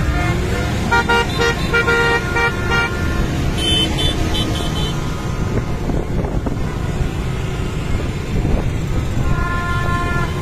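Horns honking in a crowd of motorbikes and cars: clusters of short, repeated blasts in the first few seconds, higher beeps a little later, and one long held horn near the end, all over a steady rumble of dense traffic.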